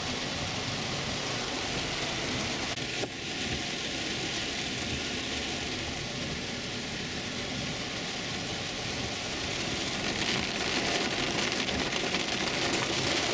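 Heavy rain pelting the roof and glass of a car, heard from inside the cabin as a steady hiss that grows a little louder in the last few seconds.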